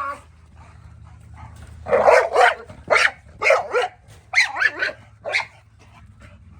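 A dog barking in a quick series of about eight sharp barks, starting about two seconds in and stopping about five and a half seconds in.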